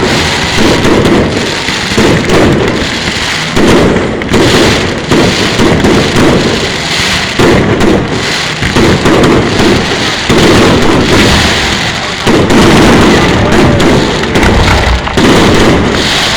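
Fireworks display going off in a loud, dense barrage: booms and crackles following one another about every second with hardly a pause.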